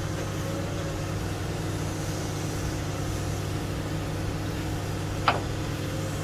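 An engine idling with a steady hum, and one sharp knock about five seconds in, from a hand tool striking the truck's metal suspension parts.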